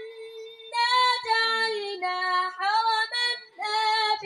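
A boy's high voice reciting the Quran in a melodic chant (tilawat) into a microphone, in long held, ornamented phrases with short pauses between them.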